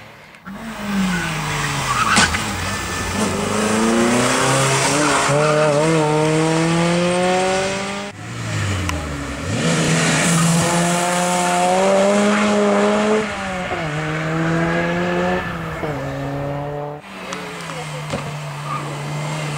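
Competition cars on a slalom course under hard acceleration, one after another: engines revving up through the gears, the pitch climbing and dropping back at each shift. The middle car is a Ford Sierra RS Cosworth.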